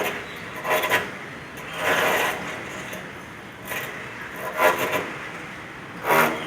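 Construction-work noise: irregular short bursts of rasping and knocking, about five in a few seconds, each under half a second.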